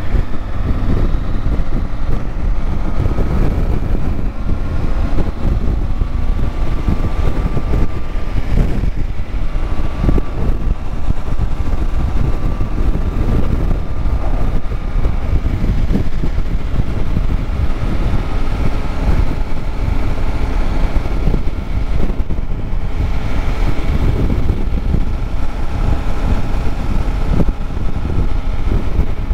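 Motorcycle running steadily at road speed, its engine mixed with wind rush on the microphone.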